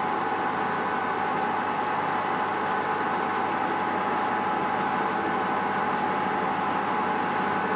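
Metal lathe running steadily, with a constant tone over an even machine noise, as a two-wheel knurling tool is pressed into a spinning brass bar and fed slowly along it.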